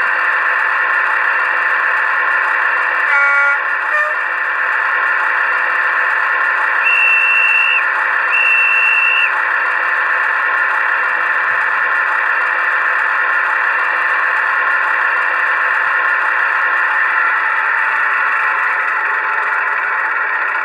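LokSound V4 sound decoder in a Class 22 model diesel locomotive playing a steady diesel engine sound through the model's small speaker. Two horn blasts of about a second each come about seven and eight and a half seconds in.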